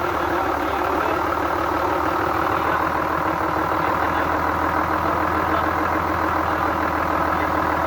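Engine idling steadily with a rapid, even ticking knock from the valve train, which the owner puts down to the rocker arms.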